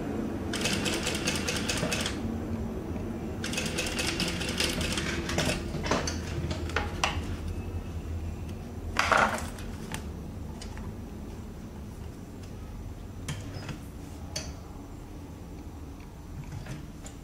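Industrial sewing machine stitching in two short runs a second or so apart, a fast even ticking of the needle over a steady low hum.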